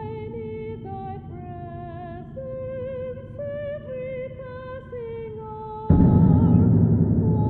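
A song: a high voice holds long notes with vibrato over a soft, steady backing, then a loud full band comes in about six seconds in.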